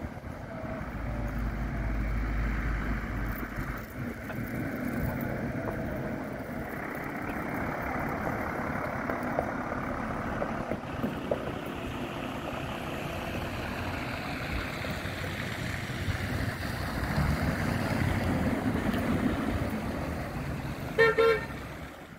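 Fire engine driving past on an emergency run, its engine and tyres giving a steady road rumble. A short horn blast near the end is the loudest sound.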